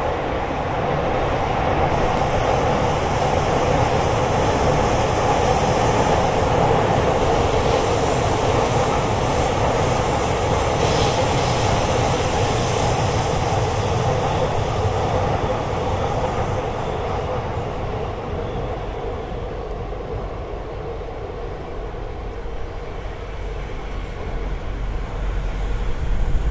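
Train noise throughout: a steady rush of rail and wheel noise that is loudest over the first half and then eases. Near the end an E7/W7-series Shinkansen comes close on the viaduct, and the sound swells with a deep rumble as it passes.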